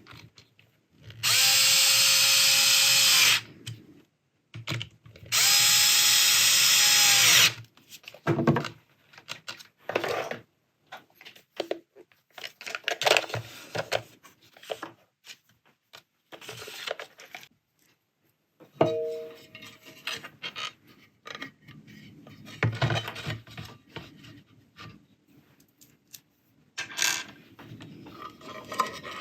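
Electric screwdriver running in two bursts of about two seconds each, driving screws in. After that come scattered clicks and knocks of parts being handled.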